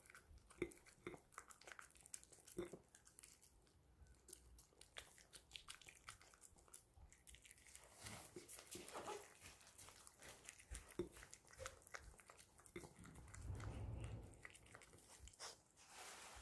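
Poodle eating soft dog cake off a ceramic plate: quiet chewing and biting with many small clicks, as it works the last crumbs off the plate. A low rumble lasts about a second near the end.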